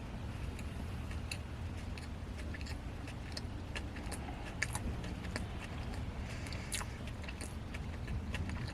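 A person chewing a mouthful of cake donut, with scattered small wet clicks and smacks of the mouth, over a steady low hum.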